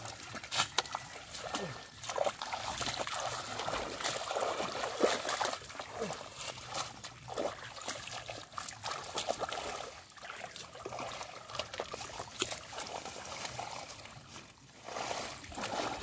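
Shallow muddy water splashing and sloshing as bare feet step through it and hands grope in the mud for fish, in irregular small splashes and trickles.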